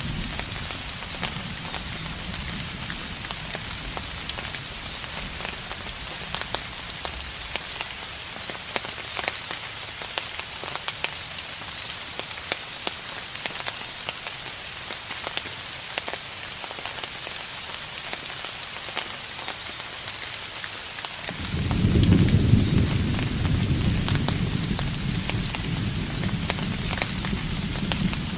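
Steady rain falling on a surface, with many small drop ticks. About three-quarters of the way through, a distant thunder rumble sets in suddenly and rolls on to the end.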